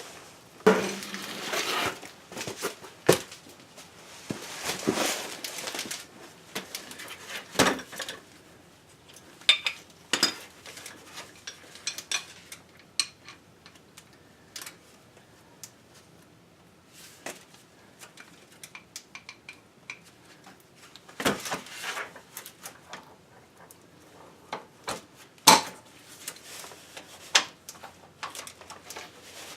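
Metal hand tools clinking and knocking while a tight plug on a Toyota FJ Cruiser's rear differential is worked loose: scattered sharp clanks, some in quick clusters, with quiet stretches between.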